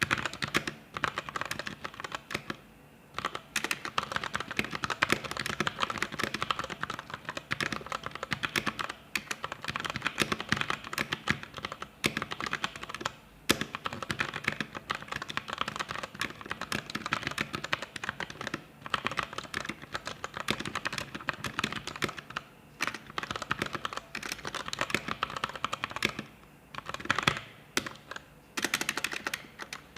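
Fast typing on a Vortexseries VX5 61-key mechanical keyboard: a dense, steady run of key clicks with a few brief pauses.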